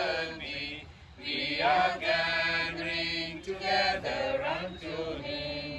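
A gathering of men and women singing a hymn together in slow, held notes, with a short break between lines about a second in.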